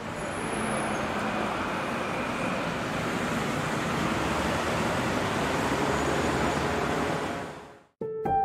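Steady city street ambience, a wash of traffic noise, that fades out near the end. Music begins just before the end.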